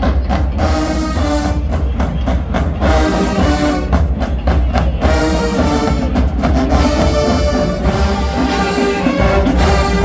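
Marching band playing loud brass with heavy drums, sustained horn chords over a steady low drum pulse.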